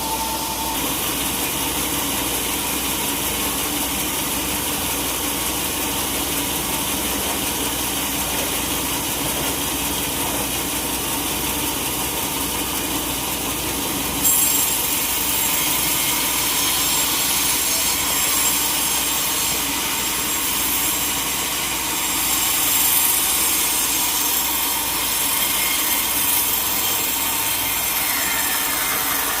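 Sawmill saw running through a teak log with a steady cutting noise, turning louder and brighter about halfway through.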